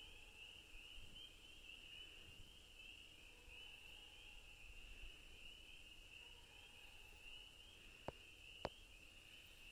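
Faint, steady chorus of spring peepers, a dense high peeping that never lets up. Two short sharp clicks come about eight seconds in.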